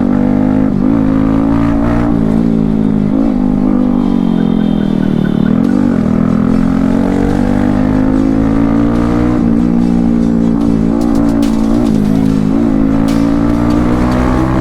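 Motorcycle engine running under way at fairly steady revs, the pitch wavering with small throttle changes, sagging about five seconds in and then slowly climbing toward the end.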